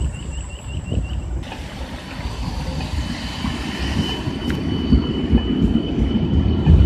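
71-931M Vityaz-M low-floor tram rolling past, its wheels on the rails rumbling louder as it goes, with a steady high whine joining about three seconds in. For the first second and a half a pedestrian crossing signal chirps rapidly.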